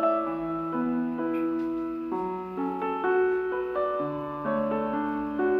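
Slow, gentle piano background music, with held notes and chords changing about every half second to a second.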